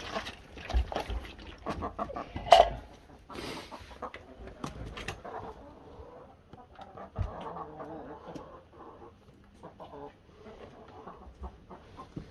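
Chickens clucking, mixed with scattered small clicks and knocks, the loudest a sudden sound about two and a half seconds in.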